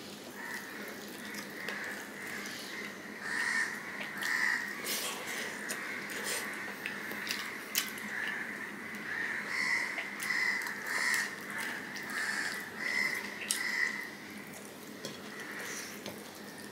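Close-up eating sounds: wet chewing and lip smacks, with fingers mixing rice and curry on a plate, giving many short clicks and squelches. Under them runs a steady high-pitched tone that swells and fades.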